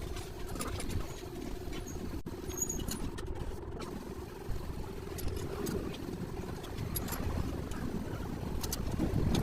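A steady low engine-like rumble with a faint held hum, and a few light clicks.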